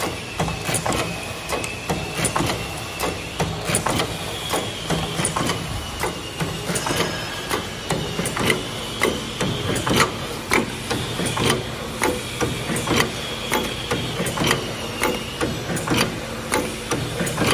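Paper cup embossing machine running: its press and feed mechanism make a rapid, uneven clatter of metal clicks and knocks over a steady low machine hum and a thin high whine.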